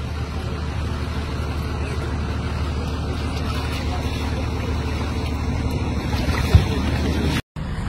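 Steady rushing noise of fast floodwater with a low wind rumble on the microphone, and a single knock about six and a half seconds in.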